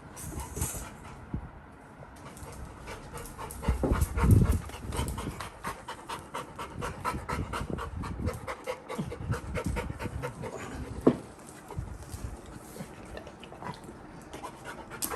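Labrador retriever puppy panting fast and evenly with excitement, with a low thump about four seconds in and a sharp click near the end.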